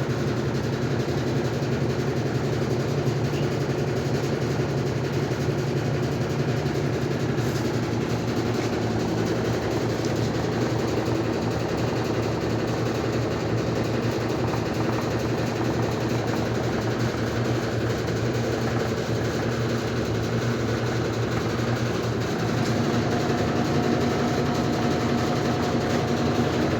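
Easy washing machine in its spin cycle, running with a steady loud mechanical hum; about three-quarters of the way through it gets a little louder and a higher whine joins in. This is the abnormal noise the machine makes when spinning.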